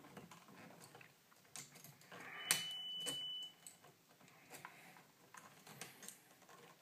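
Small pliers and stiff outlet wire being handled: a few scattered light clicks, the two loudest about two and a half and three seconds in, with a short high steady tone between them.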